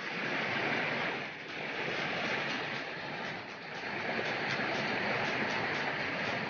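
Steady rush of flowing water, swelling and easing slightly.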